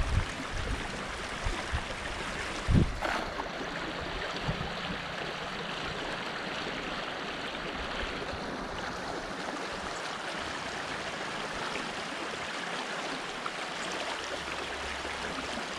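Shallow rocky stream running steadily. About three seconds in there is a single brief thump and splash as a cast net hits the water.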